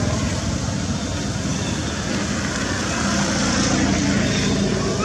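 Steady outdoor background noise: a low rumble with an even hiss, no distinct events.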